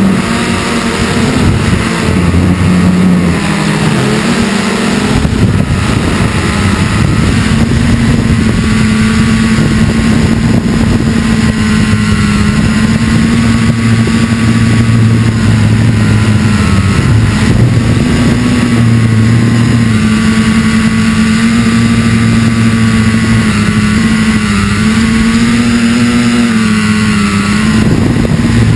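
Multirotor drone's electric motors and propellers buzzing loudly, recorded by the onboard camera, the pitch wavering up and down as the throttle changes.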